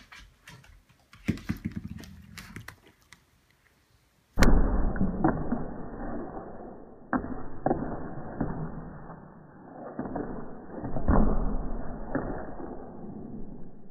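A small dog's claws tapping on a hardwood floor. About four seconds in, the sound turns muffled and slowed down, with low thuds from the ball bouncing and the dog running after it.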